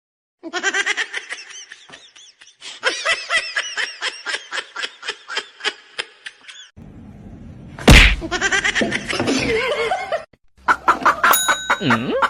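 People laughing in quick, pulsing bursts, with a sharp knock about eight seconds in.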